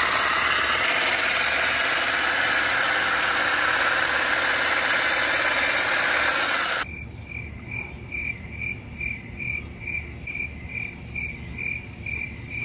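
Battery-powered hedge trimmer running steadily into a stiff, spiny shrub, then stopping suddenly about seven seconds in. Afterwards a cricket chirps in an even rhythm, about two chirps a second.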